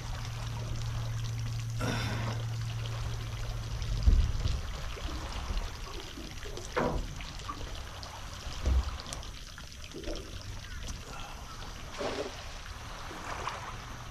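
Water pouring and trickling over a low rumble, with a short knock about four seconds in and another near nine seconds.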